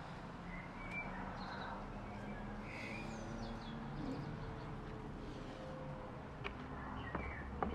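Quiet outdoor ambience with a steady low hum and faint bird chirps, and a couple of light clicks near the end.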